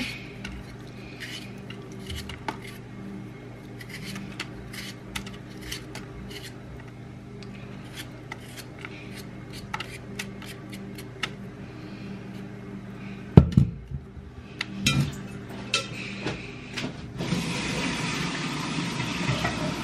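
Potatoes being peeled by hand: light scrapes and small clicks of the blade, with a sharp knock about two-thirds of the way through. Near the end a steady rush of tap water runs into a bowl.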